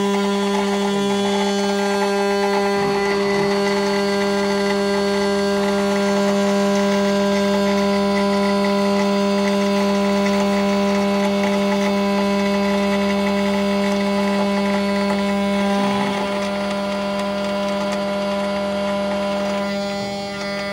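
CNC router spindle running at speed with a steady pitched hum while its end mill cuts aluminium plate, with a hiss of cutting noise over it. It gets slightly quieter about three quarters of the way through.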